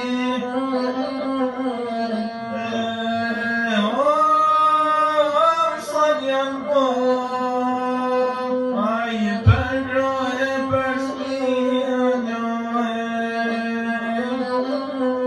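A man singing an Albanian epic song to the lahuta, the one-stringed Albanian folk fiddle, in long held notes that slide between pitches. A single brief thump about nine seconds in.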